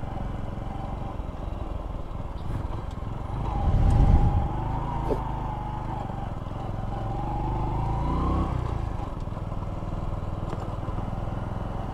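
Honda Pop 100 motorcycle's small single-cylinder engine running as the bike rolls slowly in. The engine swells loudly about four seconds in and rises in pitch again near eight seconds before easing off.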